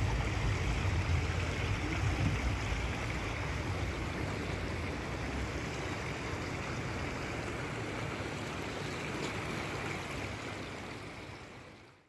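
Small fountain jet splashing into a pond, a steady rush of falling water that fades out near the end.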